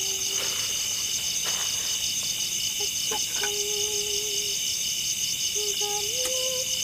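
A dense chorus of forest insects chirring steadily in rapid pulses. Under it, a few soft held tones step up and down in pitch, like a slow melody.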